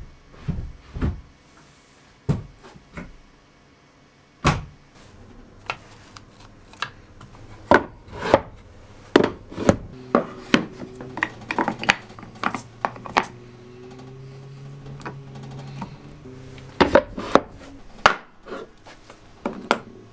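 Repeated sharp wooden knocks and clacks as wooden pieces are hung, set down and handled on a workbench, over soft background music that is heard most in the second half.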